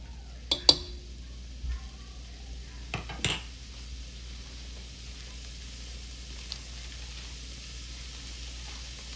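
Ground beef sizzling in a pan as it is broken up, with a few sharp clinks of a utensil against the pan in the first few seconds over a faint steady sizzle.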